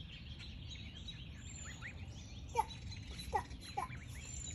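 Ducklings peeping: a few faint chirps, then three louder short falling peeps in the second half, over a steady low outdoor rumble.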